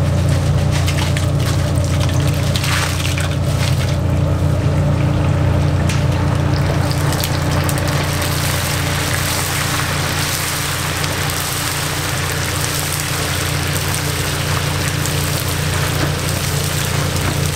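Battered bugak slices frying in a deep fryer of hot oil: a continuous sizzling and bubbling hiss that grows fuller about halfway through as the mesh skimmers stir the batch. A steady low hum runs underneath.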